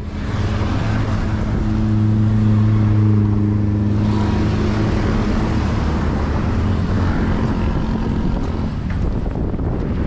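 A motor vehicle's engine running with a steady low hum that swells over the first few seconds and fades away near the end, over outdoor background noise.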